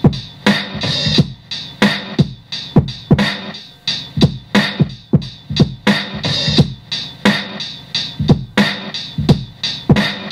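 Sampled hip-hop drum break playing back from a Maschine MK3, a steady run of kick, snare and hi-hat hits about three a second. The beatmaker finds its timing a little sloppy.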